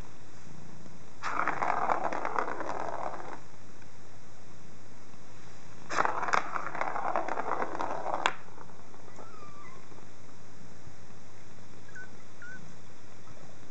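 Ball rattling around inside a plastic circular cat track toy as a kitten bats it: two runs of a couple of seconds each, the second ending with a sharp click.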